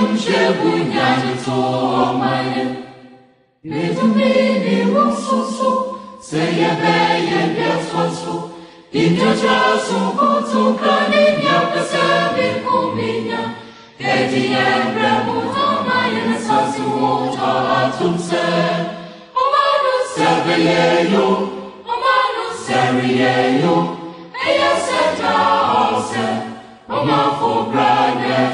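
Background music: a choir singing in long phrases with short breaks between them.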